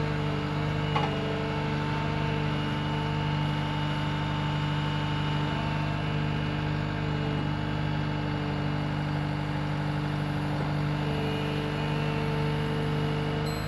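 Vehicle engine running at a steady, unchanging pitch, with a small click about a second in.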